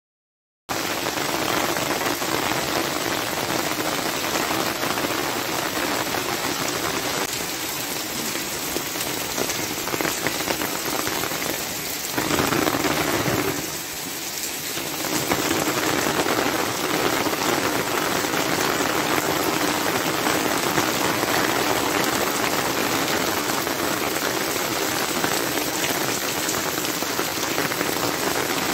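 Heavy rain falling steadily on a paved street, an even wash of drops. It starts suddenly just under a second in and eases briefly about halfway through.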